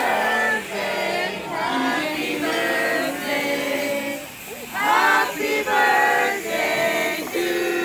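A group singing a birthday song together in unison.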